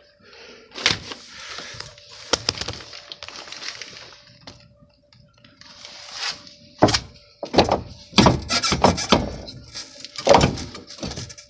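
Metal knocks, clunks and scraping as a Honda Civic's rear shock and spring assembly is worked loose and pulled out of the suspension, a few knocks at first, then a dense run of sharp knocks in the second half.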